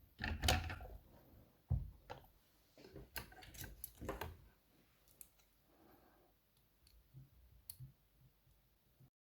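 Sharp metal clicks and scrapes of a tool prying at the retaining C-clip on the back of an ASSA 500 lock cylinder. The clicks come in a cluster through the first half, then a few lighter ones near the end.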